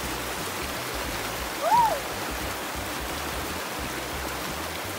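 Shallow rocky creek running over stones, a steady rush of water. About two seconds in, a brief high cry rises and falls once over it.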